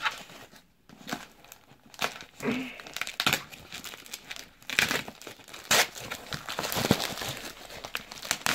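Plastic mailing bag and its wrapping crinkling as they are handled and pulled open, in irregular rustles with a few short tearing sounds.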